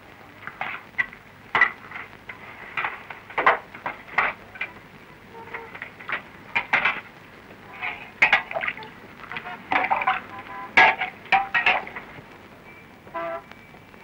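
Dishes and metal vessels clinking and knocking as a meal is served at a table: an irregular run of sharp clinks, some ringing briefly, with one longer ring near the end.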